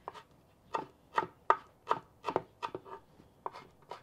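Kitchen knife chopping fresh cilantro on a wooden cutting board: sharp, unevenly spaced knocks of the blade hitting the board, about three a second.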